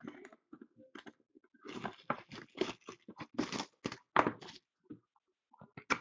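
Plastic shrink-wrap being torn and crinkled off a sealed hockey card box: a dense run of irregular crackles from about two seconds in, then a few scattered clicks near the end.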